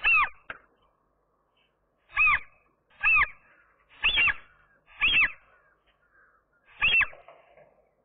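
A gull calling six times, each call short and arching in pitch, one to two seconds apart.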